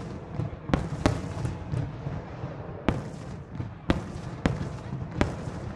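Aerial fireworks bursting: about six sharp bangs at uneven intervals over a continuous low rumble of more distant booms.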